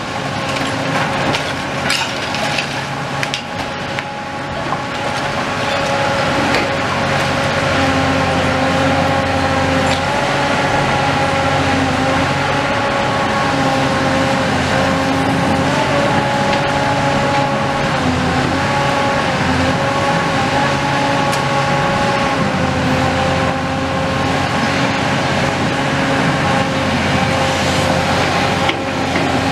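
Hyundai tracked excavator working with a demolition crusher attachment: its engine and hydraulics run with a steady, slightly wavering whine over a low rumble that rises and falls. Timber cracks and splinters in the first few seconds as the jaws break into the building.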